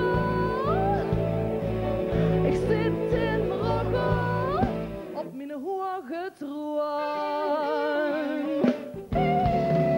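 Live song: a woman sings into a microphone over a band with a strong bass line. About halfway through, the bass drops out for a lighter passage of wavering held notes, and a steady held chord comes in near the end.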